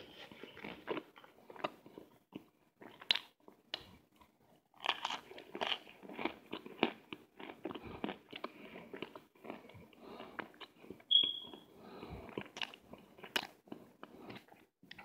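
Mouth crunching and chewing still-warm chunks of cornstarch: a dense run of irregular crisp crunches, with a brief high squeak about eleven seconds in.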